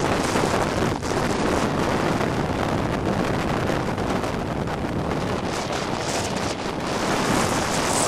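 Strong wind of at least 40–45 mph buffeting the camera's microphone: a steady, loud rush of wind noise.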